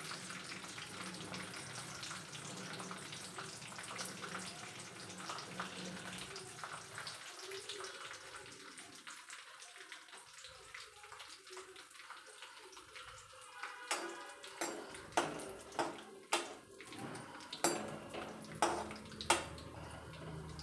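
Cashew nuts frying in ghee in an aluminium kadai, a soft steady sizzle. About two-thirds of the way in, a metal slotted spoon stirs them with a quick run of scrapes and knocks against the pan.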